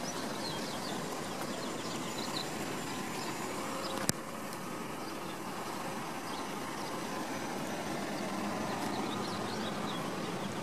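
Steady outdoor background noise with faint, short high chirps scattered through it, and one sharp click about four seconds in.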